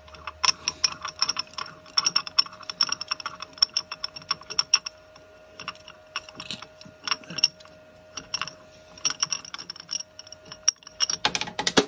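Quick runs of light metallic clicks and clinks as a piston is worked loose from a lathe chuck by hand, metal tapping and rattling on metal, with a louder flurry of clicks near the end.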